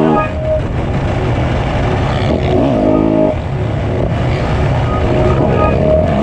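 Motocross bike engine revving hard at race pace, its pitch climbing and dropping as it revs up and shifts, with other dirt bikes' engines running close by. The sound is taken on board the bike, so the engine is loud and close.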